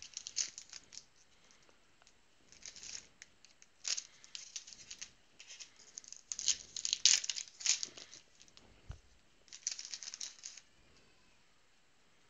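Foil trading-card pack wrappers crinkling and rustling in the hands, in short scattered bursts of crackle.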